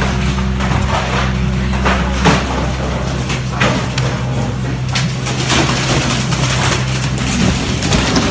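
An excavator's diesel engine runs with a steady hum that drops away for a few seconds in the middle and returns near the end, under repeated crashes and clatter of breaking building materials and debris.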